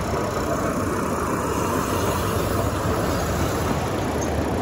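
Little Puffer miniature steam train running: a steady, even rumble.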